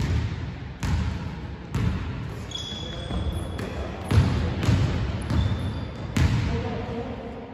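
Basketball bouncing on a hardwood gym floor, single bounces about a second apart with a pause in the middle, each ringing on in the hall's echo. A couple of short high squeaks come in between the bounces.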